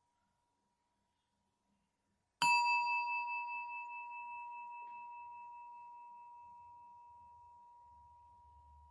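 A Buddhist bell struck once about two and a half seconds in, then left ringing with a clear, high tone that fades slowly. Its upper overtones die away first, and the ring wavers slightly just after the strike.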